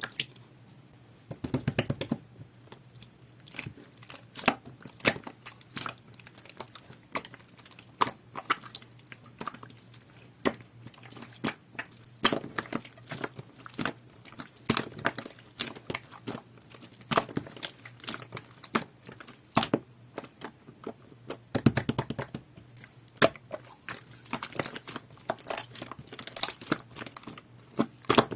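Hands squishing and pressing jelly-textured slime, making many sharp sticky clicks and pops. Denser rushes of crackling come a couple of seconds in and again about two-thirds of the way through.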